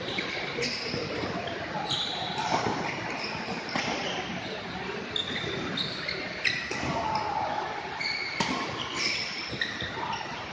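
Badminton rally: sharp racket hits on the shuttlecock every second or two, with short high squeaks of shoes on the court floor, echoing in a large hall.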